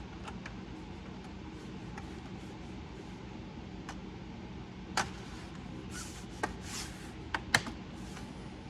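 Scattered light clicks and taps of a solid state drive and small laptop parts being handled and pressed into place, the sharpest about five and seven and a half seconds in, with a soft rustle between them. A steady low hum runs underneath.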